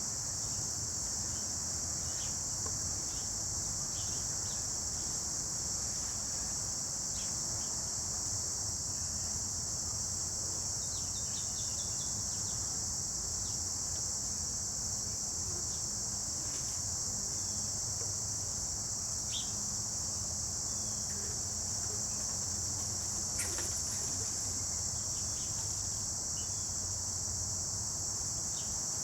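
Steady, unbroken high-pitched chorus of crickets, with scattered short bird chirps over it.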